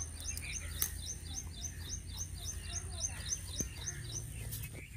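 A small bird calling in a fast, even series of short, high chirps, about four to five a second, that stops just before the end, over a steady thin high-pitched tone.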